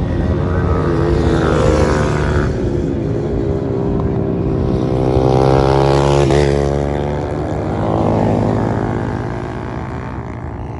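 Several sport motorcycles racing through a corner and passing close by, their engine notes rising under acceleration and dropping as each goes past. The loudest pass comes about six seconds in, with a sharp fall in pitch as the bike goes by.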